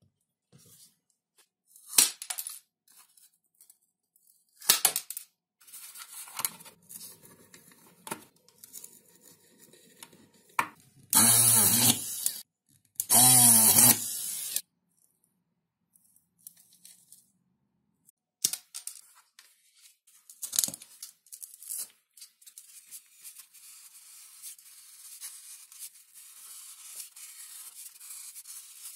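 A couple of sharp knocks early on. Then a small handheld rotary tool runs in two short spurts of about a second and a half each as it drills through wooden craft sticks laid on the foam. Near the end a craft knife scratches steadily as it cuts through XPS (Depron) foam sheet.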